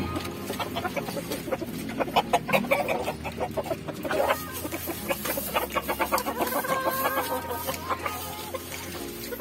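Gamecock roosters clucking, with a quick run of short clucks in the middle and a longer pitched call later on.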